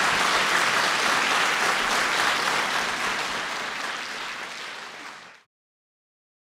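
Audience applauding, fading away over the last couple of seconds and stopping about five and a half seconds in.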